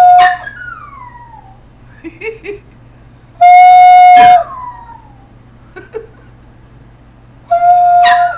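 A person's voice holds a loud, steady, high note three times, and each time a dog answers with a howl that slides down in pitch. A few short, quieter dog calls come between them.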